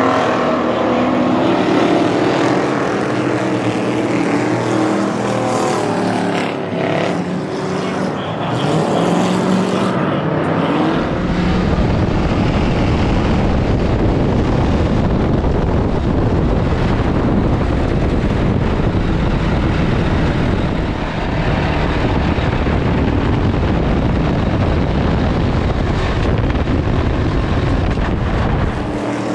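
Ford Crown Victoria stock cars racing on a dirt oval, their V8 engines rising and falling in pitch as the pack accelerates and lifts. About eleven seconds in, the sound switches to inside one car's stripped cabin, where its engine running at race speed makes a dense, steady rumble.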